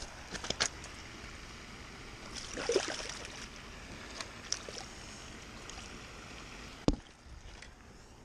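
Shallow water sloshing at a gravel pond edge, with scattered small clicks and crunches of stones shifting underfoot, a rougher scuffle about two and a half seconds in and a single sharp click near the end.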